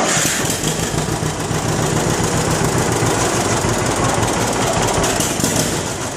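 John Deere 60's two-cylinder engine running steadily, its exhaust pulses coming fast and even.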